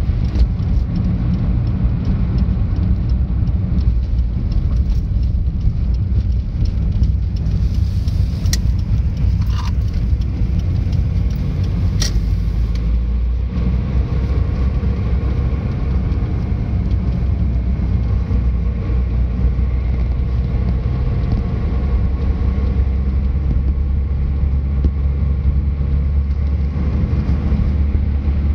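Car interior road and engine noise while driving: a steady low rumble, with a few short clicks about nine and twelve seconds in.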